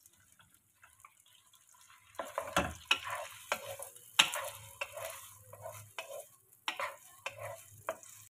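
Wooden spatula stirring thin chicken strips frying in butter in a pan: irregular scraping and knocks against the pan over a light sizzle, starting about two seconds in.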